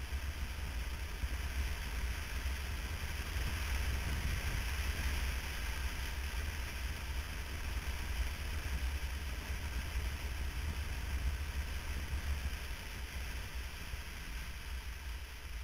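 Steady wind and road rush from a motorcycle riding at speed, with heavy low wind rumble on the bike-mounted camera's microphone.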